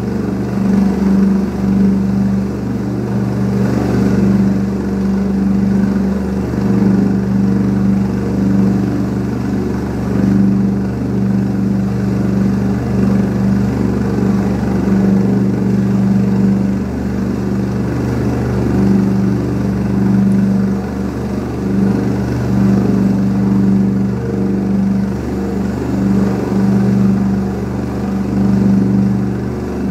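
Air-rescue helicopter's turbine engine and rotor running steadily at a constant pitch, with a strong low hum.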